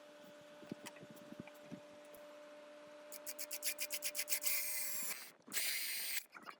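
Rapid abrasive rubbing strokes, about five a second, building into continuous loud rubbing with a faint high whine that breaks off briefly and resumes. A low steady hum runs underneath until about five seconds in.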